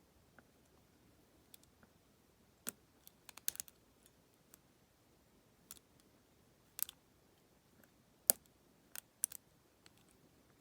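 A lock pick and tension wrench working inside a Federal PL90PE lockout padlock: scattered, irregular sharp metallic clicks as the pick works the pins and warding. The loudest click comes about eight seconds in.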